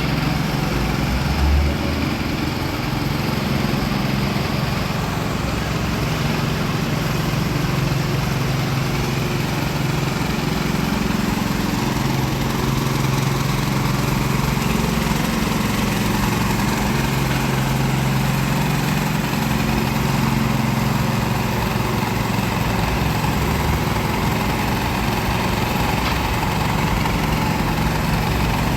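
An engine running steadily at idle, a constant low hum with no change in speed.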